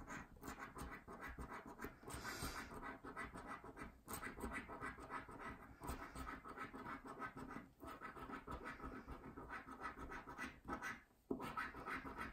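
A coin scratching the coating off a paper scratchcard, in rapid back-and-forth strokes with short pauses every couple of seconds.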